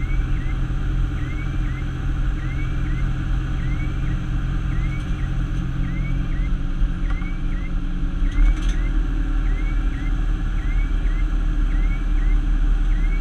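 Fire tanker truck driving at road speed, its engine and tyre noise heard inside the cab as a steady rumble. A short rising-and-falling chirp repeats a little more than once a second throughout, and there is a single knock about eight seconds in.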